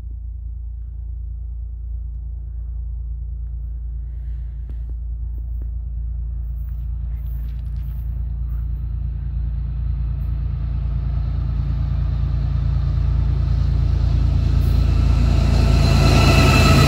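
Diesel locomotives of a CN intermodal stack train approaching at high speed: a low engine rumble that grows steadily louder. Higher-pitched tones join in during the last few seconds as the train nears.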